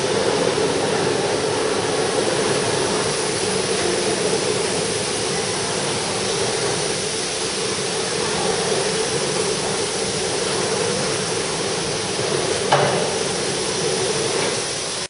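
Automatic filter bag sewing machine running: a steady mechanical drone, with one sharp knock about 13 seconds in.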